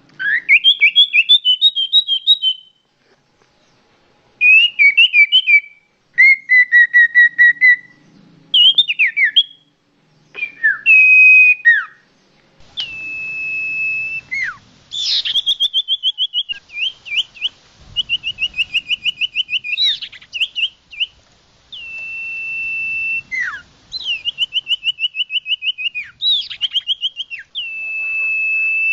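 Common iora (cipoh) singing loud, clear phrases: fast trills of repeated notes broken by short gaps at first, then long steady whistles alternating with quick trills and sharp downward-slurred notes. A song recording of the kind used as a lure call to attract birds.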